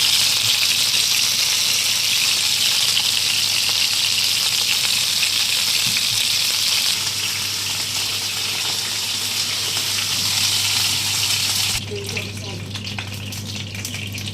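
Food frying in hot oil in a pan, with a loud, steady sizzle. About twelve seconds in, the sizzle drops suddenly to a quieter crackle with scattered ticks.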